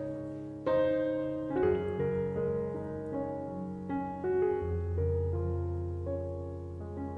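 Background music: slow, soft piano playing sustained chords and melody notes, with a deep bass note coming in about halfway through.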